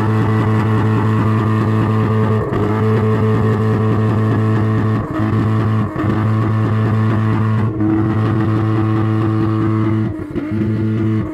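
Car engine revved and held at a steady high rpm through a loud aftermarket exhaust for a decibel-meter reading at the tailpipe. The revs dip briefly about two and a half, six and ten seconds in.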